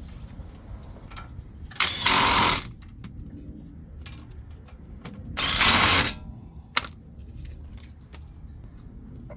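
Two short bursts from a power tool, each just under a second long, about three seconds apart, with a sharp click shortly after the second.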